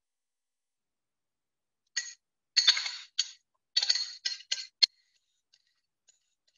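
A quick run of short scraping and clinking noises, grated garlic, ginger and sliced scallion being scraped out of a small ceramic dish into a glass bowl. It starts about two seconds in and ends with one sharp tap just before five seconds.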